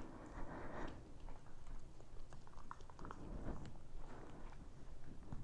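A puppy chewing quietly, with a few light clicks.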